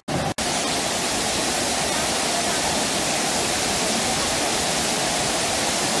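Steady, even rush of a waterfall's falling water, starting after two brief dropouts right at the start.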